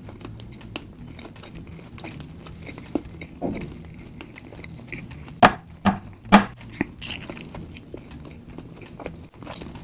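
Close-miked chewing of a big mouthful of McDonald's spicy beef burger, with wet mouth clicks throughout and a few louder, sharper mouth sounds about halfway through.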